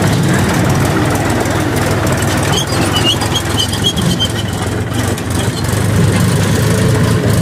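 Tractor diesel engine running steadily under load as the tractor climbs out of muddy water and drives along a dirt track.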